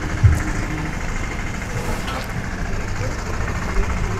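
Steady low mechanical hum of background noise, like a motor running nearby, with a single short thump about a quarter second in.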